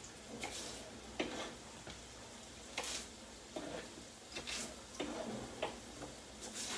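Kitchen knife chopping celery into strips on a cutting board: short knocks of the blade hitting the board, about ten of them at an uneven pace.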